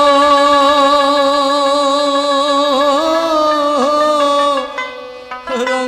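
Bengali folk song: a singer holds one long, wavering note, likely continuing the drawn-out 'are ho' call, and steps up in pitch about three seconds in. The note breaks off briefly near the end before the next sung phrase starts.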